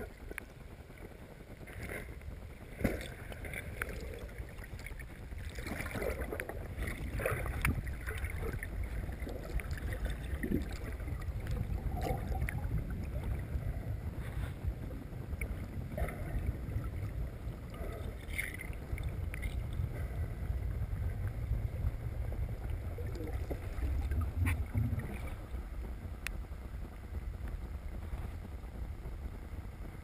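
Underwater river sound heard through a submerged camera: a steady low rumble of moving water, with scattered small clicks, knocks and bubbling.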